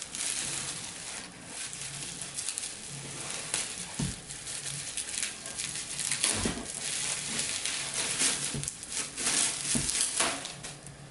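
Packaging being handled: rustling and crinkling of wrapping, with a few dull thumps.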